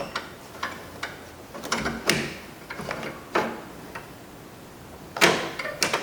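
Irregular clicks and rattles of a plastic inside door handle and its metal linkage rods being worked loose from the door, with two sharper knocks near the end.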